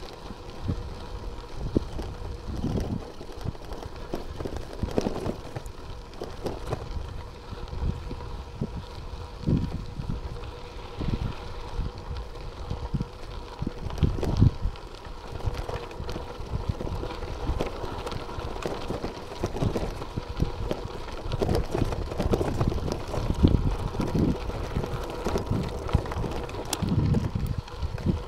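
Bicycle riding over a gravel track, with wind buffeting the microphone in irregular gusts and a faint steady hum underneath.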